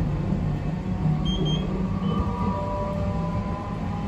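Tosaden tram running, heard from the driver's cab. Its nose-suspended (tsurikake) traction motors and gearing give a steady low hum with several held whining tones above it, over the rumble of wheels on the rails.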